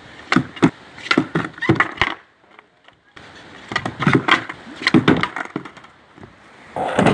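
Skateboard deck and wheels knocking and clattering on a concrete ledge and brick paving in two bursts of sharp knocks, with a short lull between them; the second burst includes the board coming down upside down on the bricks.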